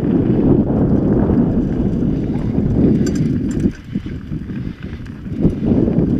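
Mountain bike rolling fast over dirt singletrack: tyres rumbling and the bike rattling over bumps, with wind on the microphone. It goes quieter for about two seconds past the middle, and there are a few sharp clicks about three seconds in.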